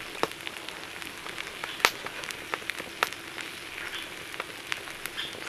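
Food frying in a pan: a steady sizzling hiss with scattered sharp pops and crackles, the loudest about two seconds in.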